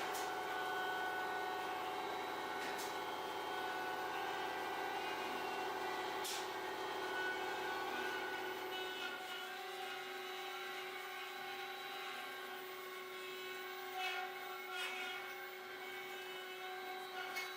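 CNC router running steadily while cutting wood, a whine of several steady tones; the sound thins and changes pitch about nine seconds in, with a few faint clicks.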